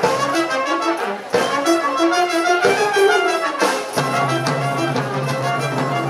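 A brass band playing live: trumpets and saxophone carry a quick-moving melody over the band, with a few drum hits. About four seconds in, a low held note comes in underneath.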